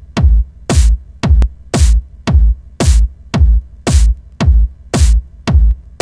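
Electronic dance track built on a drum-machine beat: a deep kick drum about twice a second, alternating with a hissing, cymbal-like high hit, over a faint background.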